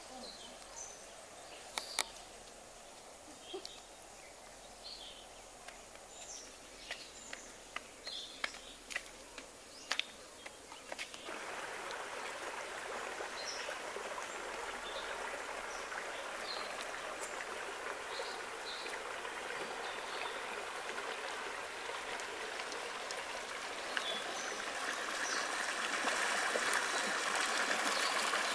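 Rushing river water, a steady noise that comes in suddenly about a third of the way through and grows louder near the end. Before it, a quieter stretch holds scattered short bird chirps and sharp clicks.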